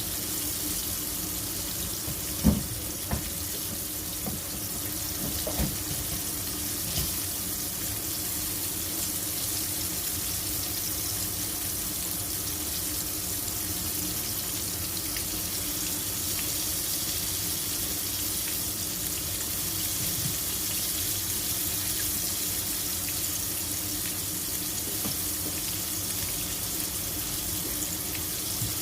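Kitchen tap running steadily into a sink, with a few light knocks in the first several seconds.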